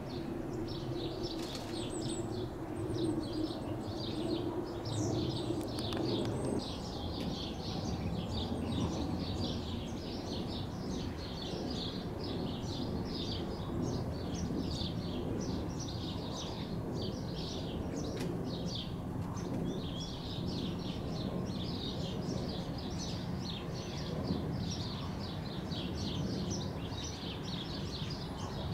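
Small birds chirping busily, many short high chirps a second without a break, over a steady low background rumble.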